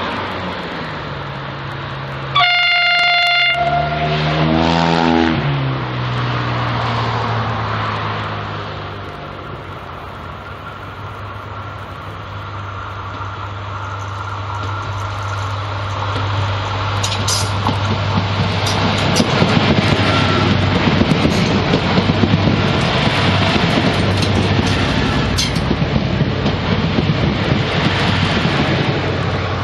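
A Trenitalia regional train sounds its horn twice, a short high note and then a lower one, then comes on with a steady low engine drone that grows louder as it nears. Sharp wheel-on-rail clicks join in as it draws alongside.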